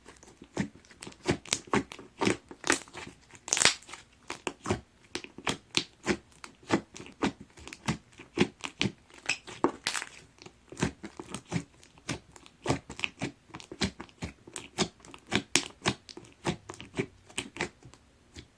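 Slime being squeezed, poked and stretched by hand, giving a quick, uneven run of sharp sticky clicks and pops, about two or three a second.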